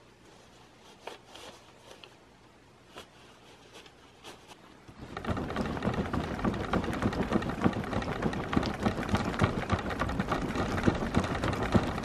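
A few faint clicks and rustles, then from about five seconds in a loud, dense rustling and scraping on the microphone as the camera is handled and repositioned.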